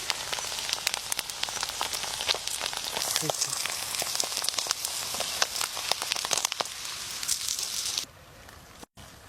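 Food frying in hot oil: a steady sizzle with many small pops and crackles, which cuts off about eight seconds in.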